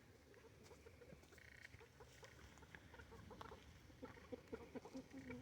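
Chickens clucking faintly in a hen house, a scatter of short clucks that grows busier near the end, with a brief low call just before it stops.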